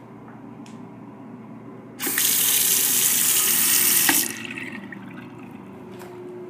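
Bathroom sink faucet turned on, its stream of water splashing into the sink basin and drain. The water starts suddenly about two seconds in and shuts off about two seconds later.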